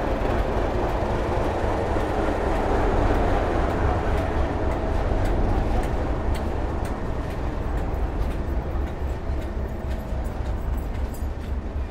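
Class 37 diesel locomotive's English Electric V12 engine running as the test train pulls along the platform, a heavy low rumble that is loudest in the first half and eases a little as the coaches roll past. Wheels click over the rail joints through the second half.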